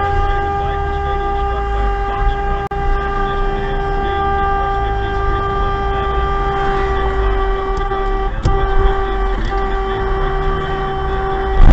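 Car horn held down for an obnoxiously long time as one steady tone, broken briefly twice about eight and nine seconds in, over low road and engine rumble.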